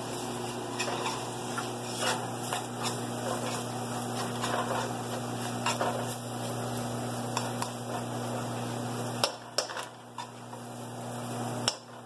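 Onion, garlic and masala spices frying in a pot, a soft steady sizzle, with a spoon knocking and scraping against the pot now and then as it is stirred. The level drops suddenly about nine seconds in.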